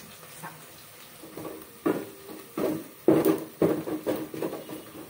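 Wooden spoon stirring onions frying in an aluminium pot, knocking and scraping against the pot wall. The knocks start about a second and a half in, come several times, and each one rings briefly in the metal.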